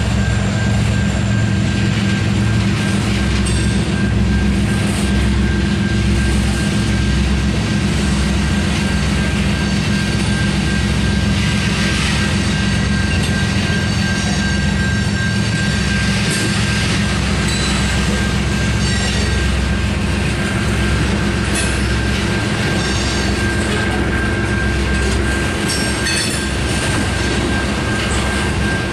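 Loaded coal train's Union Pacific coal cars rolling steadily past: a continuous rumble of steel wheels on rail, with a thin, high, steady wheel squeal held throughout and occasional sharp clicks from the wheels.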